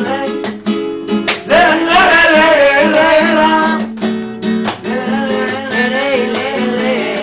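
Male flamenco singer improvising cante in a wavering voice over a flamenco guitar's picked notes and strummed chords. There are sharp strums about a second in and again around four seconds.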